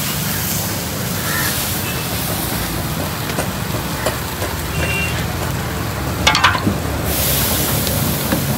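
Water sizzling and hissing on a hot flat griddle as it is wiped with a wet cloth, over a steady low rumble. The hiss dies down midway, a short clatter comes about six seconds in, and the sizzle rises again as the plate steams off water near the end.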